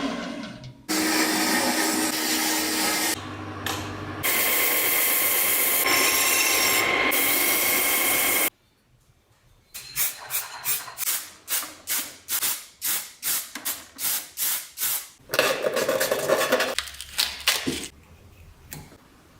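Restoration work on a rusty old coffee grinder. A power tool runs steadily for several seconds and breaks off twice. After a short pause come quick back-and-forth rubbing strokes, about two or three a second, like hand filing or scrubbing, and then more tool work that fades near the end.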